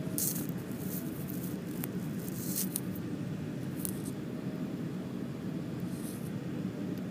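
Steady low rumble inside the cabin of a JR East E4 series Max double-decker Shinkansen, with a faint steady hum above it. Several brief hissing sounds in the first few seconds and one more near the end.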